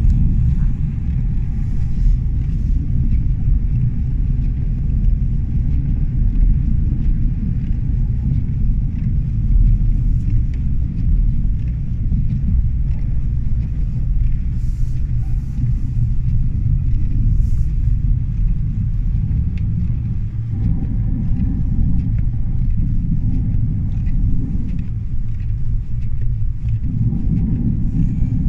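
Steady low rumble of a vehicle driving along a snow-covered road, heard from inside the cabin: engine and road noise.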